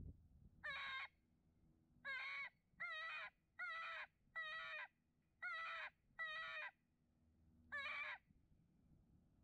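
Electronic predator caller playing a series of short, wailing distress cries, eight in all, each under half a second, with uneven gaps between them.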